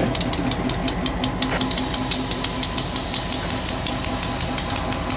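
The engine of an EMD GP15-1 diesel-electric switching locomotive, a 12-cylinder two-stroke 645, running steadily as the unit rolls slowly past at close range. A quick, even beat of about six or seven pulses a second runs through it.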